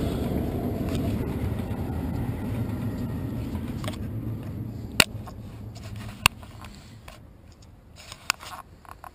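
Handling noise from a small action camera being picked up and moved: a low rumble that fades away, broken by a few sharp knocks about five, six and eight seconds in.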